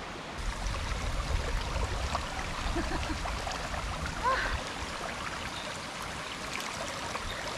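Steady rushing noise, with a low rumble through the first half and a few faint short chirps.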